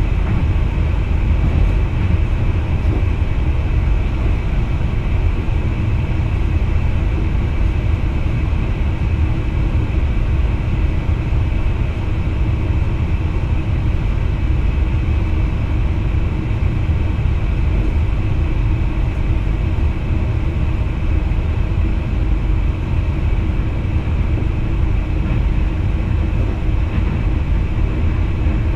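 Steady low rumble inside the driver's cab of an NS VIRM double-deck electric train running along the track, with faint steady humming tones above it.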